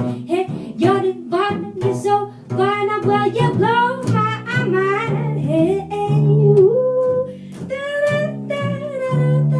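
A small band playing and singing: a voice sings over plucked double bass and guitar, with a steady rhythm of low bass notes.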